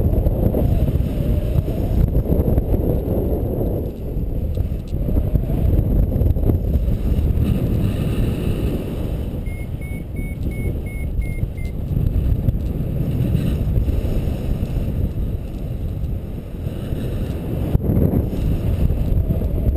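Wind rushing over the microphone during a paraglider flight, a steady low rumble throughout. About ten seconds in, a variometer beeps in a quick run of about seven short tones over two seconds, its signal that the glider is climbing.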